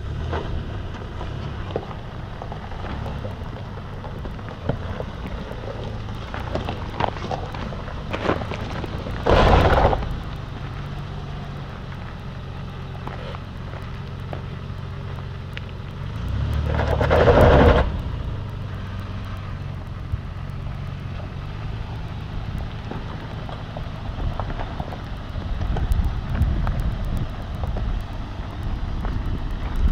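Nissan Patrol 4x4 engine running at low revs as it crawls over loose rock, with a gritty crunching from the stony ground under the tyres. There are two louder rushes of noise, about nine seconds in and around seventeen seconds in.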